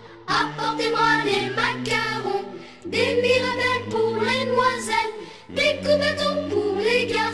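A French Christmas song: voices singing together over music, in held notes with short breaks between phrases about three and five and a half seconds in.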